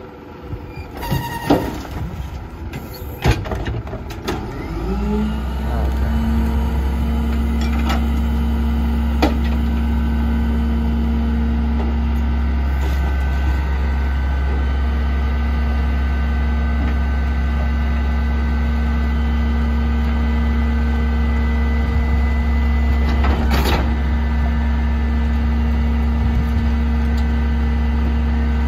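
Leach Sanicruiser rear-loader garbage truck with a few knocks in the first seconds. About five seconds in, its engine rises to a fast steady run with a steady whine over it, driving the hydraulics as the cart tipper slowly lifts a trash cart.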